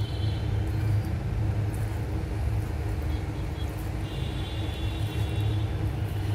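Steady low background rumble with a faint high whine that comes in about four seconds in.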